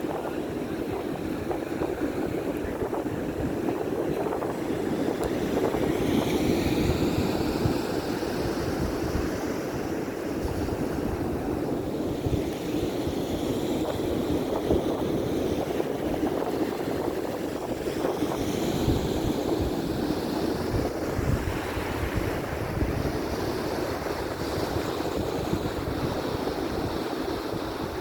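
Waves washing onto a beach, their hiss swelling and fading several times, over wind buffeting the microphone.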